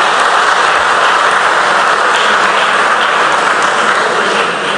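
Audience of schoolchildren applauding, a steady clapping that fades away near the end.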